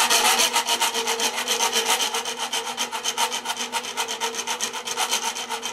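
Hand file scraping a steel whirligig rod in rapid, even short strokes, taking the copper-coloured paint coating off down to bare metal before welding.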